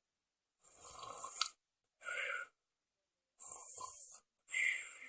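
Exaggerated, acted snoring: two snores, each a long rasping breath in followed by a shorter breath out.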